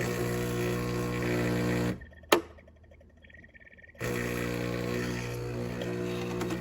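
Philips fully automatic espresso machine's pump humming steadily, cutting out about two seconds in, with a single sharp click during the short pause, then starting up again as it pumps coffee or milk.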